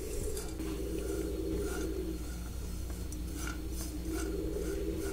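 Sliced almonds toasting in a dry pan on the stove, with light scattered scraping and rustling as they are moved about, over a steady low hum.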